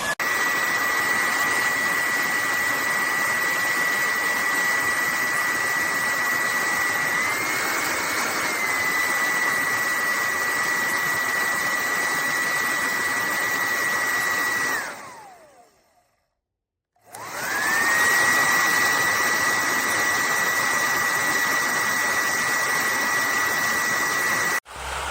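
Bellissima Diffon hair dryer running, a steady rush of air with a high whine from its fan motor. About 15 seconds in it is switched off and the whine drops in pitch as the motor winds down to silence; a second or so later it is switched back on and spins up to full speed again.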